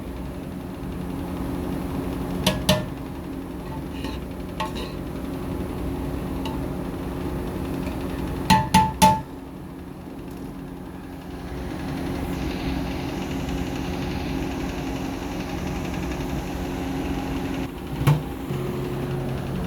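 Steady low kitchen hum with a few sharp metal knocks of a utensil against a cooking pan: one about two and a half seconds in, three quick ringing knocks about nine seconds in, and one more near the end.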